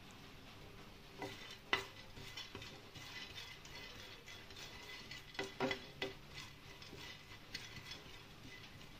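A spoon stirs sunflower seeds around a black kadai as they roast, scraping and tapping against the pan. There is a sharp knock of the spoon on the pan about two seconds in and a cluster of knocks around the middle, then lighter stirring.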